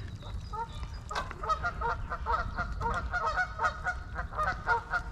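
Geese honking, many short calls in quick succession, several a second, over a low rumble.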